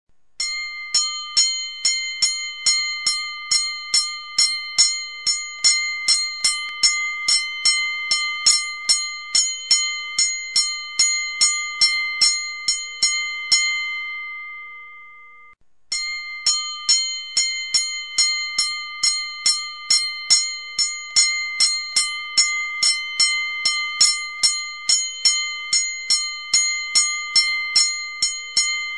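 Boxing ring bell rung rapidly, about three strikes a second, in two runs of roughly thirteen seconds each; after each run the ringing dies away, and the second run starts right after the first fades.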